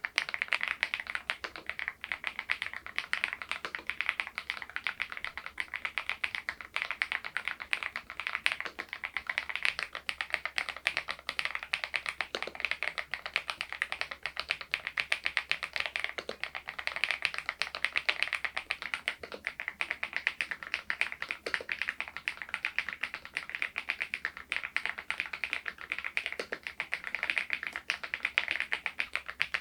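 Typing on an Epomaker TH80 V2 PRO mechanical keyboard with its stock keycaps: a steady, unbroken stream of quick keystroke clicks.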